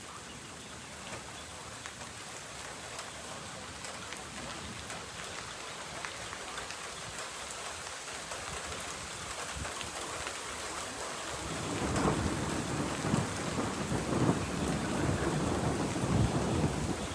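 Steady rain falling, with a scatter of small drop clicks; about two-thirds of the way in a low thunder rumble builds and grows louder toward the end.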